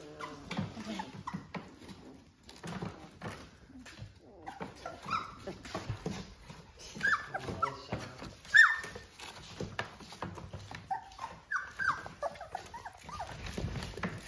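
A litter of three-week-old Labrador retriever puppies whimpering and yipping in short, high squeaks that fall in pitch, the loudest a little past the middle, amid soft scuffling as they climb over one another.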